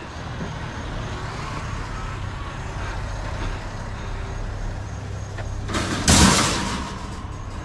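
Truck engine idling with a steady low hum. About six seconds in, a loud hissing rush lasts about a second and then fades.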